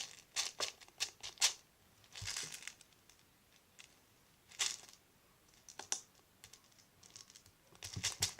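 Foam slime beads and their plastic container being handled: scattered light clicks and rustles, then near the end a fast run of clicks and rattles sets in.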